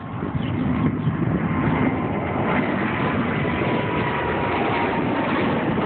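Boeing 787 jet engines at takeoff power as the airliner climbs out overhead: a loud, steady jet roar that swells during the first second, with a faint steady whine above it.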